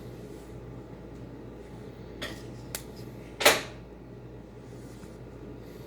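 One loud, sharp, sudden pop about three and a half seconds in, loud enough to startle, after two faint clicks, over a steady low hum.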